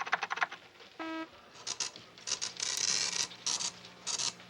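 A computer printer, likely a dot-matrix, printing: a quick run of clicks, a short electronic beep about a second in, then a rasping print head running back and forth in several bursts.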